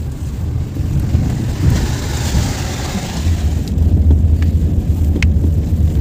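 Car driving through shallow water running over a concrete causeway, heard from inside the cabin: a steady low rumble, with a hiss of water splashing under the tyres for a couple of seconds about two seconds in.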